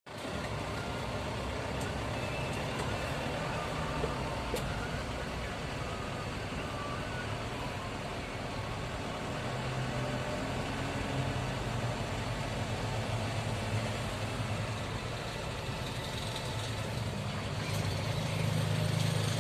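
Vehicles running in slow, jammed road traffic: a steady rumble with a low engine hum that grows stronger in the second half.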